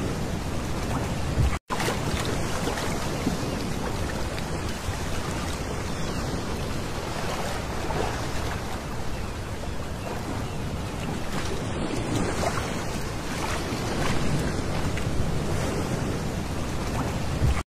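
Small waves lapping and breaking on a pebble beach, water washing in over the stones in a steady wash, with the sound cutting out for an instant about a second and a half in.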